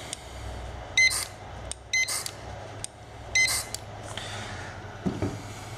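Handheld USB barcode scanner beeping three times as it reads codes, each short beep followed at once by a brief buzzing whir of a Reely micro servo swinging to its new position.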